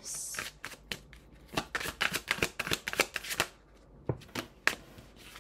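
A deck of reading cards being shuffled by hand: a quick run of card flicks and snaps, densest in the middle, then a few single snaps near the end.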